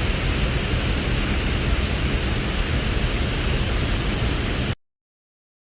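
Steady rush of fast river water and waterfall, filling the sound evenly, then cutting off abruptly to silence about five seconds in.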